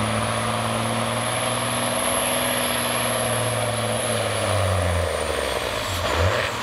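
Mack semi tractor's diesel engine working hard under load while it drags a truck-pull sled, with a high turbocharger whine over it. From about four and a half seconds in, the engine note and the whine fall away as the truck loses speed at the end of its pull.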